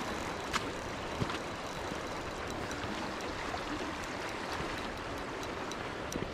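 River water rushing steadily over a shallow, rocky riffle, with a couple of light clicks about half a second and a second in.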